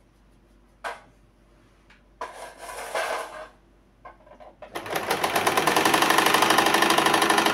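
Domestic electric sewing machine stitching polar fleece. After a short click and a brief burst of noise, the machine starts about five seconds in and runs fast and steadily: a rapid, even rattle of needle strokes.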